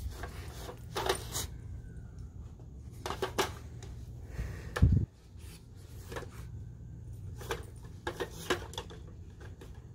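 Scattered clicks and clattering of a dog treat puzzle toy's pieces as a dog noses and paws at them, with one heavier thump about five seconds in.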